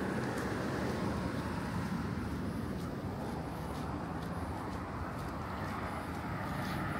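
Steady outdoor city background noise, mostly a low, even rumble of road traffic, with a few faint ticks.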